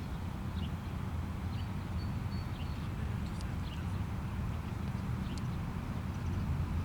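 Outdoor ambience dominated by wind rumbling on the microphone, with faint short high chirps scattered through it.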